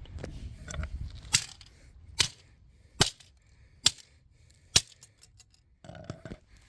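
Five sharp, hard knocks, evenly spaced a little under a second apart, from blows struck on a smoke alarm as it is being smashed. A few light clicks and a short rustle follow near the end.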